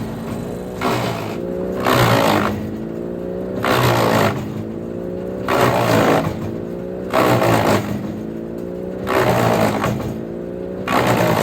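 Engine-driven wood chipper chipping sawmill offcuts and bark, a loud crunch about every two seconds as pieces are chewed up, six in all. Between crunches the engine note dips and climbs back up.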